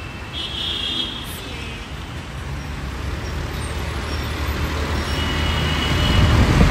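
Busy road traffic heard from a moving motorbike: vehicle engines running and tyres on the road, with a steady low rumble that grows louder near the end as a truck comes alongside. A brief faint high tone sounds about half a second in.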